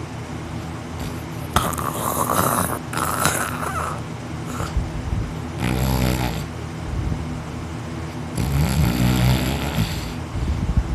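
A man snoring heavily in deep sleep, lying on his back with his mouth open, with a loud snore every few seconds.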